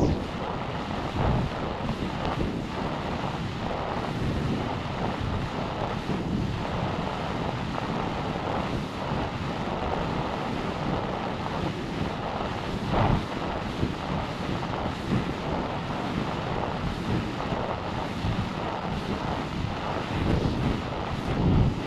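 Wind buffeting an onboard camera microphone on a descending rocket section hanging under its parachute: a steady rushing noise with occasional louder gusts and thumps.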